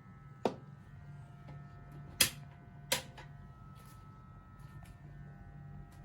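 Electric meat grinder running with a steady low hum, with three sharp cracks and faint crackling as crunchy nimko snack is crushed.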